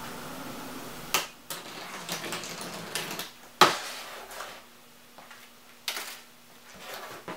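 A large cardboard box being handled and opened: a series of sharp cardboard knocks and crackly scrapes, the loudest knock about three and a half seconds in.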